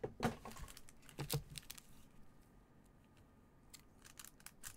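Foil trading-card packs handled in gloved hands: light clicks and crinkles, bunched near the start and again near the end with a quieter stretch between.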